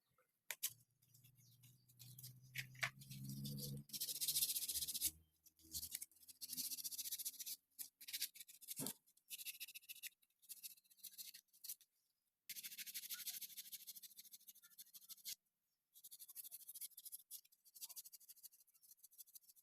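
Intermittent scraping and rubbing in short bursts, broken off by abrupt cuts, with a low hum in the first few seconds.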